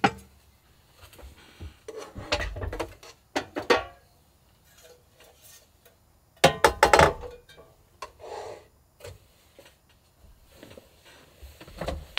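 Handling knocks and clinks of a metal takoyaki plate and an electric hot plate being moved and set down on a table: several short clatters with quiet gaps between, the loudest about six and a half seconds in.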